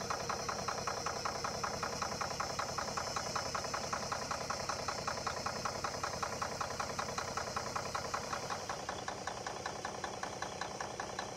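Cummins N14 Plus inline-six diesel in a 1998 Freightliner FLD 120 SD dump truck, idling steadily with an even, rapid pulse of diesel clatter.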